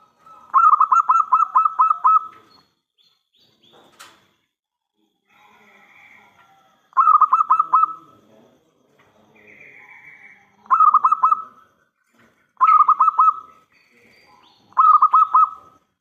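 Zebra dove (perkutut) cooing in repeated bursts of rapid, staccato notes: a long phrase of about eight notes, then four shorter phrases a few seconds apart.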